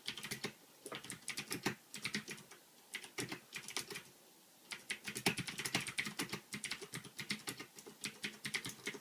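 Typing on a Ducky Shine 2 mechanical keyboard with clicky Cherry MX Blue switches: quick runs of keystrokes in bursts, with short pauses about two and four seconds in.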